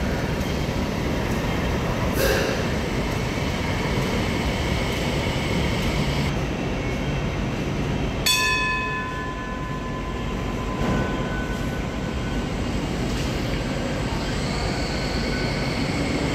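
MTR Light Rail vehicle running with a steady rumble. There is a sharp click about two seconds in, and about eight seconds in a ringing tone starts suddenly and fades over a second or so.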